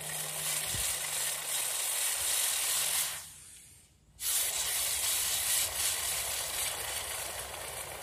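Metal melting furnace running with a steady hiss during an aluminum melt. The hiss dies away about three seconds in and comes back abruptly about a second later.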